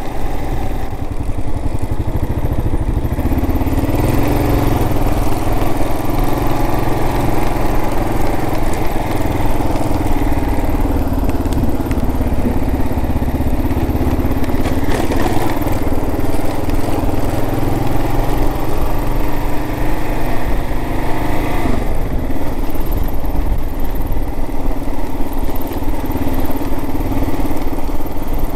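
Kawasaki KLR 650's single-cylinder four-stroke engine running under way. Its note steps up about four seconds in and drops about 22 seconds in, under a steady low rumble.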